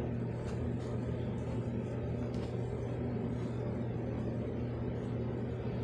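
Steady low hum with a rumbling background noise, unchanging throughout, with a few faint clicks in the first few seconds.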